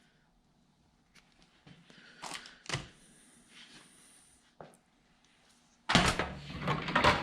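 Handling noises during wiring work: a few light clicks and knocks, then a loud rattling clatter that starts about six seconds in.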